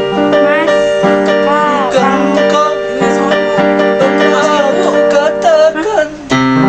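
Electronic keyboard playing an instrumental break: a lead melody with sliding, bent notes over sustained chords, with a brief drop about six seconds in before a new chord comes in.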